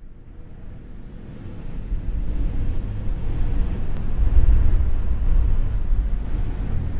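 Low rushing wind fades in from silence and grows louder over the first couple of seconds, then holds.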